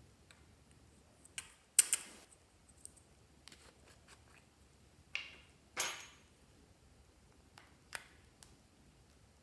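Clear slime being handled: a few short sticky crackles and sharp clicks at irregular moments, the loudest about two seconds in and another pair a little before the six-second mark, with quiet in between.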